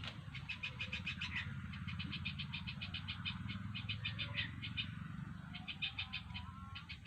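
Runs of rapid, high chirps, about a dozen a second, repeating with short gaps over a faint low hum: an animal calling.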